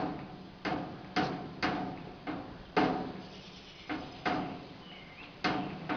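Stainless-steel grill cabinet doors clanking as a toddler yanks on the handle while they are held shut, so they jolt against their stop. There are about ten sharp metallic knocks at an uneven pace, each ringing briefly.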